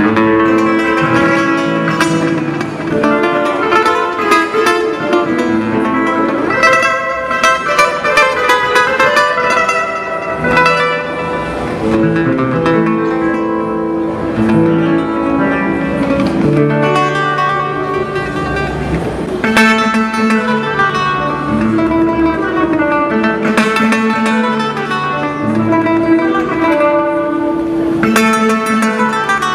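Solo acoustic guitar playing a Peruvian tune, a plucked melody over held bass notes, with a few sharp strummed chords along the way.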